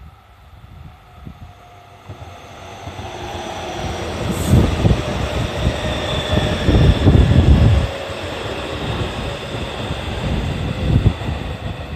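JR Central 313 series electric train approaching and passing at reduced speed. It grows louder over the first few seconds, then a steady rumble and clatter of wheels on the rails runs on, with a faint sliding hum above it.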